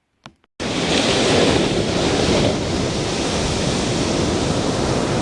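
A single click, then a loud, steady rushing noise, like surf or heavy rain, that cuts in suddenly about half a second in and carries on evenly.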